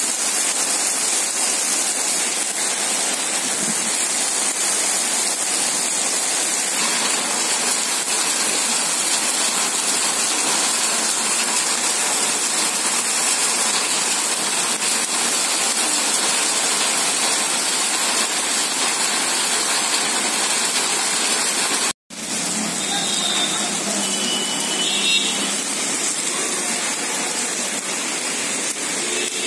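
Heavy rain pouring onto wet concrete and puddles: a steady, dense hiss of rain on the surface. It cuts out for an instant about three quarters of the way through, then carries on.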